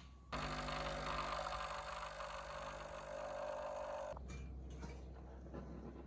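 A steady whirring noise with a low hum, like a small motor running, that starts abruptly and cuts off suddenly after about four seconds.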